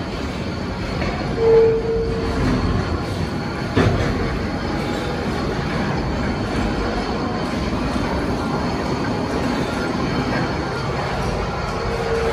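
Steady mechanical rumble and clatter of running machinery, with a brief high squeal about one and a half seconds in and a sharp knock about four seconds in.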